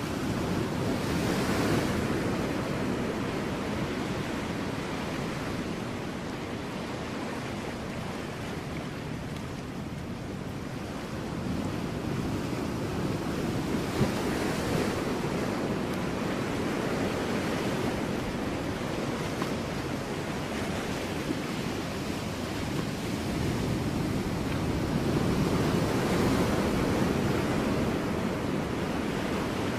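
Ocean waves breaking on rocks: a continuous wash of surf that swells three times, about a second in, about halfway and near the end.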